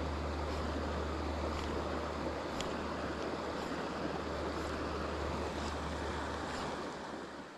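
Creek water rushing steadily, with a low wind rumble on the microphone that drops away near the end.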